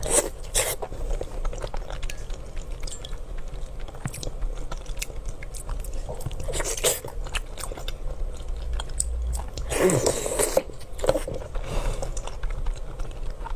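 Close-up biting and chewing of food, with crunchy bites and many small mouth clicks, and a few louder bites scattered through.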